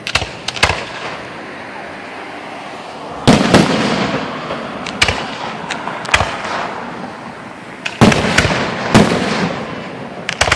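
Aerial fireworks bursting overhead: a string of sharp bangs, the loudest about three seconds in and again about eight seconds in, each followed by crackling and a trailing echo.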